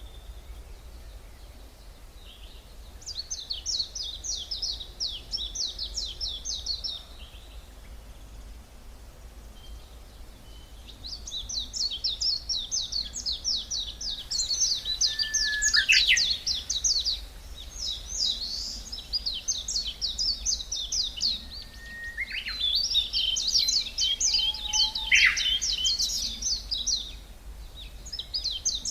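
Songbirds singing in a deciduous forest: several phrases of fast, high, repeated notes, each lasting a few seconds with short pauses between, over a steady low background rumble.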